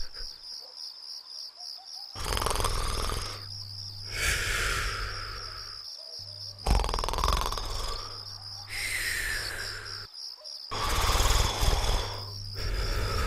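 Cartoon snoring: rasping snores in a slow, even rhythm, about one every two seconds, some ending in a falling whistle. A high fluttering tone runs steadily underneath.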